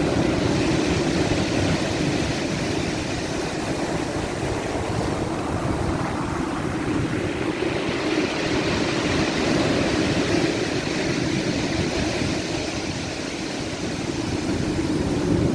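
Black Sea surf: waves washing on the shore in a steady rush, swelling about halfway through and easing near the end.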